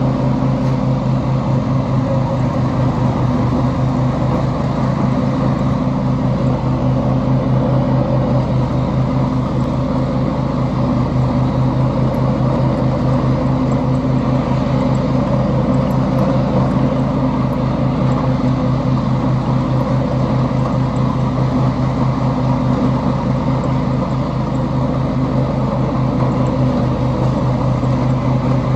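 Riding lawn mower engine running at a steady speed while mowing, an even hum that holds its pitch throughout.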